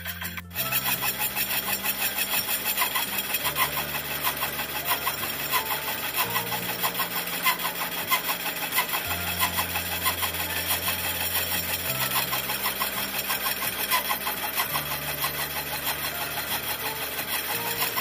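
Milling machine cutter running through an aluminium pulley blank, a steady rapid chattering cut. Background music with slowly changing bass chords plays under it.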